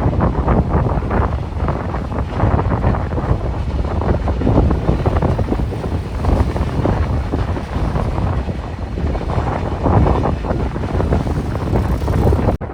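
Wind buffeting the microphone: a loud, gusting rumble with no clear rhythm or tone, which cuts off suddenly near the end.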